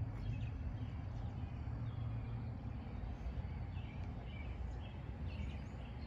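Outdoor background of a steady low rumble with faint, scattered bird chirps. The smoke alarm gives no test beep while its test button is held down: it is failing its self-test.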